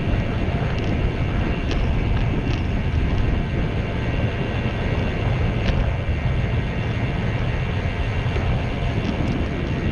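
Wind rushing over a GoPro's microphone on a bicycle riding at about 17 mph, with tyre noise on the paved trail. A few faint ticks come through the steady noise.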